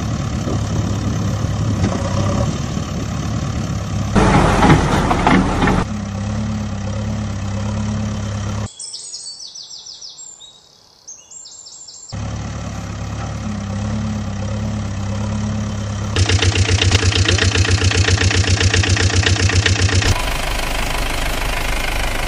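Engine sound effects laid over toy construction vehicles: a steady heavy diesel engine that cuts abruptly between clips, giving way for a few seconds to quieter bird chirping partway through, then a rhythmic chugging engine near the end.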